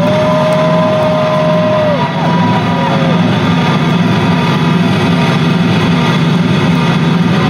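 Concert crowd cheering and roaring, with a couple of long held shouts over it in the first two or three seconds.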